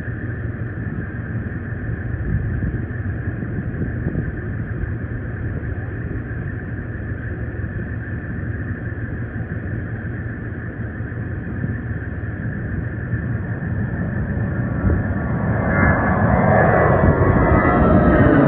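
Twin jet engines of an Airbus A320 airliner at takeoff thrust: a steady rumble with a whine, growing louder from about three seconds before the end as the jet climbs out overhead, its pitch starting to fall as it passes.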